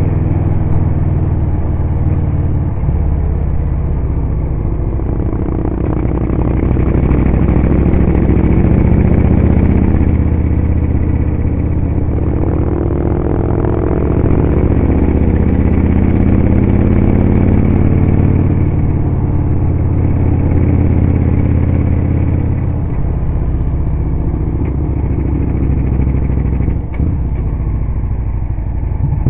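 Victory motorcycle's V-twin engine running steadily at road speed, heard on board from behind the windshield. Its pitch rises and falls around the middle as the throttle changes.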